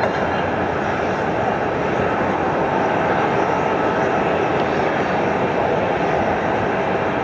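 Steady jet aircraft engine noise on an airport apron, an unbroken whooshing hum with a faint whine held on top.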